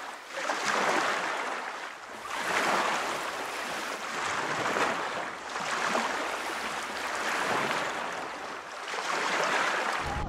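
Ocean waves washing, a rushing hiss that swells and fades every couple of seconds.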